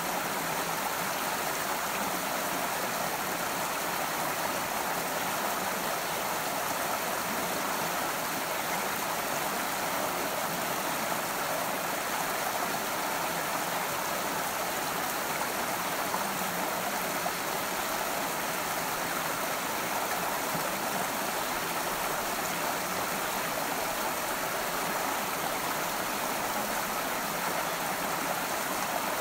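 Small stream running over rocks, a steady, even rush of water.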